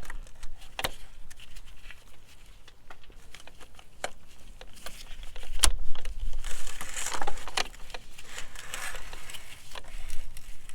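Scattered clicks and scraping of hand work as the oil filter housing with its new filter is fitted back into the engine and tools are handled.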